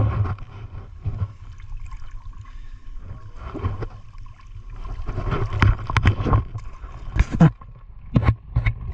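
River water splashing and sloshing in irregular bursts over a low steady rumble, the sharpest splashes about seven and eight seconds in.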